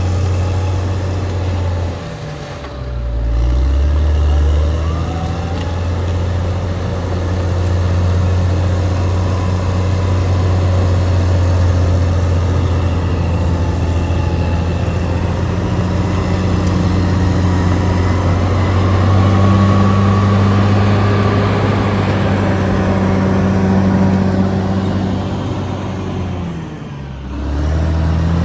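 Caterpillar D6R XL bulldozer's diesel engine running steadily under work, its pitch and loudness dipping briefly about two seconds in and again near the end before picking back up.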